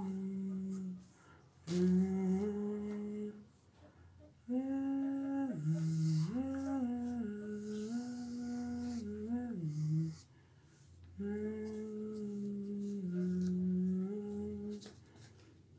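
A person humming a slow, wordless tune in phrases of held notes that step up and down, with short pauses between phrases.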